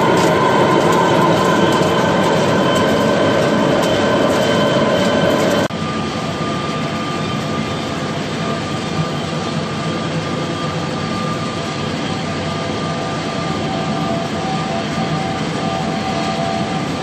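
Large engine lathe running, its tool cutting a spinning steel workpiece with a dense crackle of chips over the machine's drone. About six seconds in the sound drops abruptly to a steadier, slightly quieter lathe drone with a faint whine as the big ring turns in the chuck.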